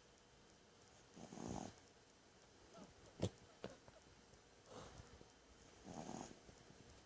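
Sleeping pet snoring softly: two drawn snoring breaths about four and a half seconds apart, a weaker one between them, and a short sharp click a little before the middle.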